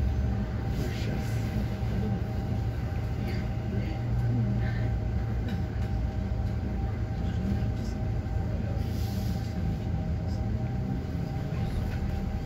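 Steady hum inside the cabin of a SOR NB 18 city bus, its engine idling while the bus stands still.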